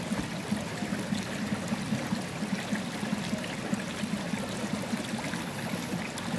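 Shallow, rocky stream flowing and trickling over stones, with bare feet wading through the water.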